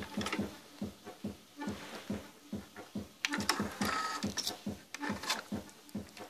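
Sony 711 three-head cassette deck: a click as the stop button is pressed, then a few seconds in the eject button is pressed and the transport mechanism clatters as the cassette door opens. A low thudding beat, about three a second, runs underneath throughout.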